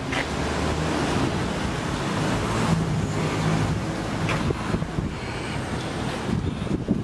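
Wind buffeting the camera's microphone: a steady rushing noise with a low rumble.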